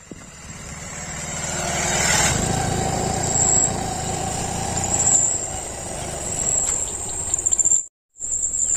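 A motor vehicle's engine running, growing louder over the first two seconds and then holding steady until it cuts off abruptly near the end.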